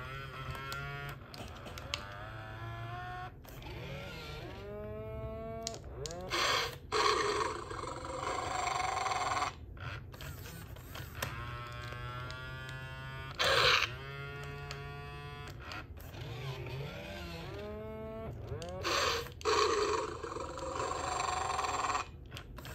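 Mattel D-Rex animatronic dinosaur toy giving its recorded creature calls through its speaker: several gliding, warbling growls and cries with raspy noisy stretches between them, over a steady low hum.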